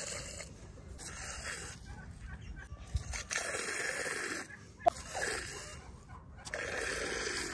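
Domestic chickens clucking: a series of drawn-out calls with short gaps between them, and a short sharp click about five seconds in.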